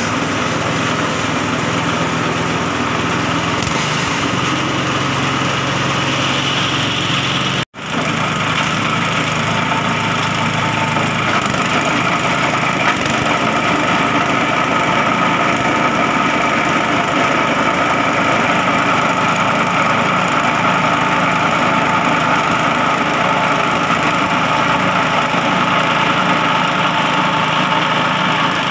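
Small petrol engine running steadily at working speed, driving a coconut-husk shredder as husks are fed into it. The sound cuts out for a moment about eight seconds in.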